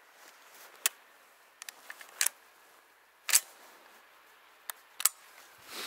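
Footsteps in snow: a handful of sharp, uneven crunches about a second apart, the loudest about three seconds in.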